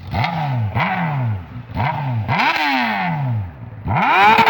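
Honda Hornet motorcycle engine revved in a series of about five quick throttle blips, each one rising sharply in pitch and falling back toward idle.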